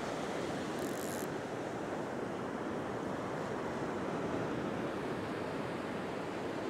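Ocean surf breaking and washing up a sandy beach: a steady rushing noise, with a short high hiss about a second in.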